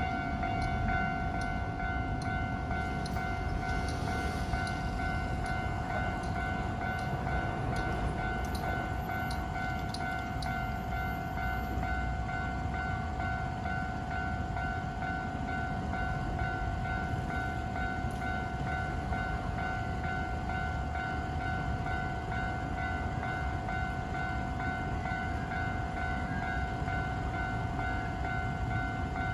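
Japanese level-crossing warning bell ringing steadily through the whole stretch, over the low rumble of a Keio Line electric train, with a few faint ticks a quarter of the way in.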